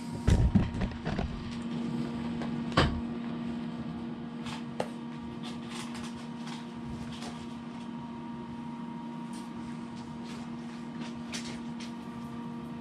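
Light clicks and knocks from a plastic gear lube bottle and parts being handled on a wooden bench, with a few thumps at the start and the sharpest knock about three seconds in, over a steady low hum.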